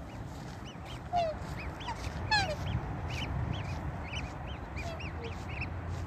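Black swan cygnets peeping: short, high calls repeated throughout, with two louder descending whistled calls about one and two seconds in.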